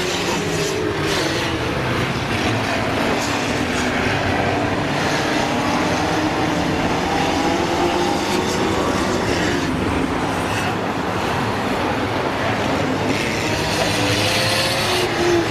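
Racing stock car engines running, their pitch rising and falling as the cars drive round the track, over a constant rumble.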